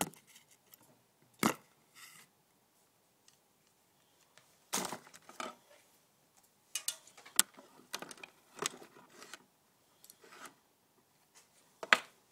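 Handling noise from hands working with small hardware: scattered sharp clicks with short rattles and rustles between them. One click comes about a second and a half in, and the loudest comes near the end.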